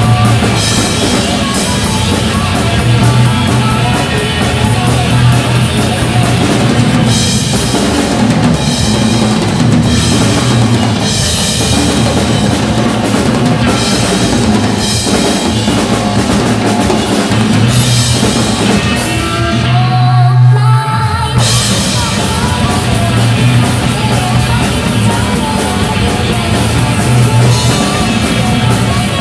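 Drum kit played in a rock groove with steady cymbal and bass-drum work, over a rock song with singing. About 20 seconds in the drums and cymbals stop briefly, leaving only held notes of the song, then the kit comes back in.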